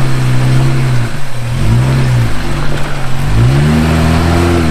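Jeep Wrangler engine revving under load as the Jeep crawls up a rock ledge, the pitch rising and falling in three surges of throttle.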